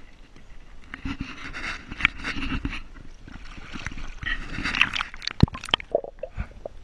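Lake water sloshing and splashing as a pike is lowered by hand into the water beside a kayak and released, ending in a flurry of sharp splashes about five seconds in.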